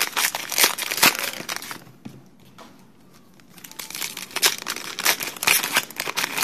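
Plastic wrappers of football trading card packs crinkling as they are handled and torn open. The crackling eases off around two seconds in and picks up again about four seconds in.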